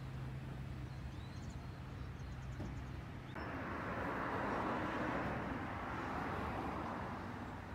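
Street ambience: a low steady hum with faint bird chirps early on, then a rushing noise that starts abruptly a little over three seconds in, swells and fades away.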